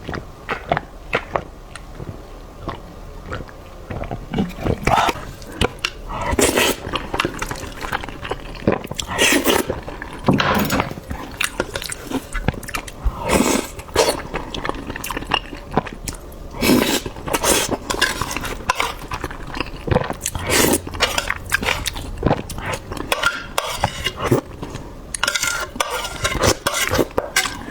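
Close-miked eating of shrimp and scrambled egg: irregular biting and chewing sounds, with occasional clinks of utensils against a dish.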